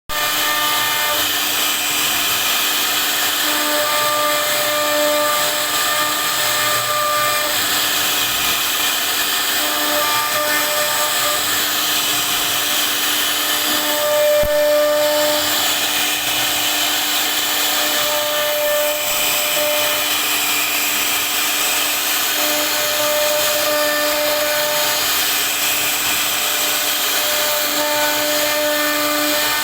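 CNC router spindle running and cutting a carved design into a wooden board: a loud, steady whine over a constant hiss, the tone swelling and fading every few seconds as the cutter's load changes.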